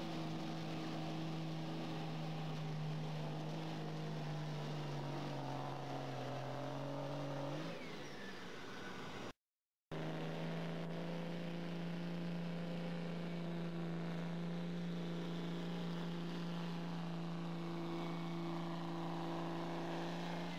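Dodge Ram diesel pickup engines held at high revs while pulling a weighted sled, a steady drone. In the first pull the pitch sags slowly as the truck bogs under the sled. After a short break the second truck's engine holds steady at high revs.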